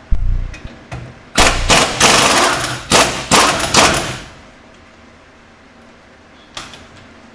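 Loud metal-on-metal banging and rattling: two sharp knocks, then a close run of half a dozen heavy blows and clatter over about three seconds, and a last knock near the end. It comes from tool work on a truck's rear differential while its bearings are being changed.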